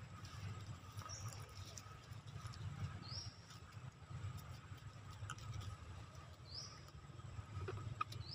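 Quiet outdoor ambience: a steady low rumble and a faint steady high tone, with three short, high, rising chirps, about one, three and six and a half seconds in, and a few faint ticks.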